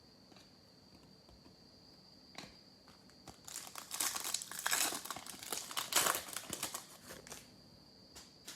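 Foil trading-card pack wrapper being torn open and crinkled in the hands, a few seconds of loud crackling with some clicks before and after, over a faint steady high whine.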